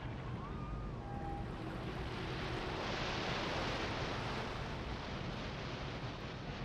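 Steady rushing outdoor ambience that swells about three seconds in and then eases.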